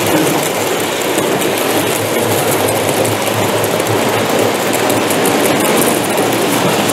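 Model train running on an exhibition layout: a steady mechanical running noise without breaks.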